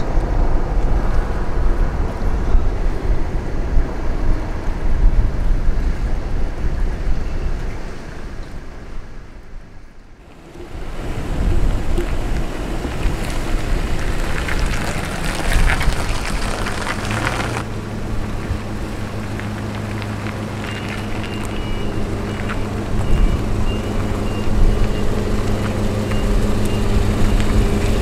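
Wind and road noise fades out about ten seconds in and then comes back. From about two-thirds of the way through, the engine of a Toyota Hilux Surf idles steadily with a low, even hum.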